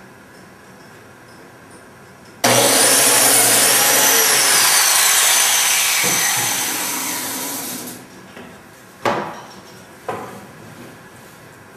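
Biscuit joiner cutting a slot in wood: the motor starts suddenly, runs loud, then winds down with a falling whine once switched off. Two knocks follow near the end.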